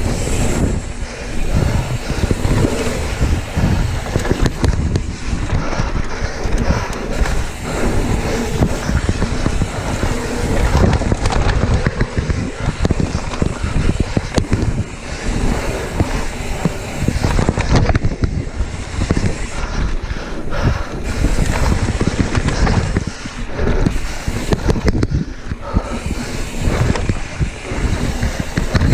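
Mountain bike rolling fast down a dirt trail: a steady rush of wind buffeting the microphone over the rumble of tyres on the dirt, with frequent rattles and knocks from the bike over bumps.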